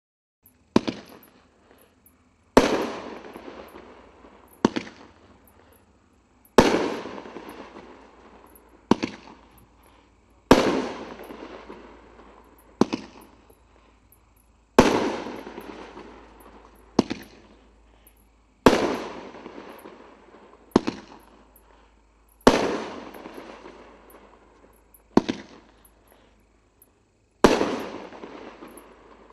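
Forward 'Rodeo Wrangler' 16-shot 500-gram fireworks cake firing its shots in sequence, a sharp bang about every two seconds. Louder bangs with a long fading tail alternate with shorter, quieter ones.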